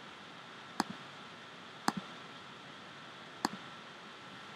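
Three computer mouse clicks, each a press followed quickly by a softer release, about a second or so apart, over a steady background hiss with a faint thin whine.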